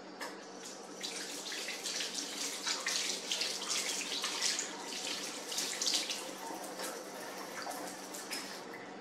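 Water running from a tap into a sink with uneven splashing, building about a second in and tapering off near the end.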